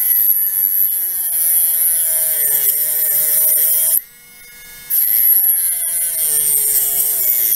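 BEF Platinum Mini Speed 12 V mini rotary tool with a small toothed saw blade cutting into a strip of wood, in two cuts with the blade lifted out briefly just after four seconds. A high hiss from the blade in the wood over the motor's whine, whose pitch dips as the small motor slows under the load.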